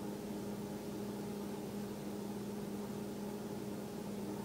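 Steady low hum with a faint hiss and no distinct events: background room tone.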